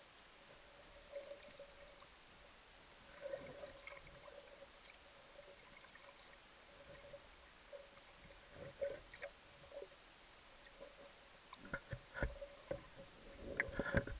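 Muffled underwater sound recorded through a camera's waterproof housing: a faint steady hum with scattered knocks and clicks from the diver's gear. The knocks come more often and louder toward the end.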